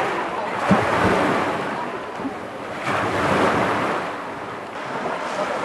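Sea surf washing over rocks and up onto the sand: a steady rush of water that swells twice, about a second in and again around three seconds in.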